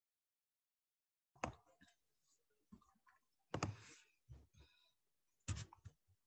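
Near silence broken by a few faint, short clicks, scattered irregularly through the second half.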